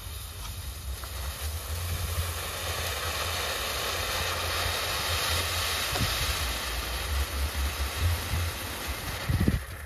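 Ground firework fountain spraying sparks with a steady hiss that swells midway and dies down near the end, over a low rumble, with a couple of low thumps near the end.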